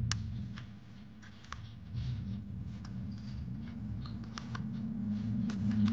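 Plastic toy truck parts clicking and tapping as they are handled and wheels are pressed on, a scattering of small sharp clicks. A steady low hum runs underneath.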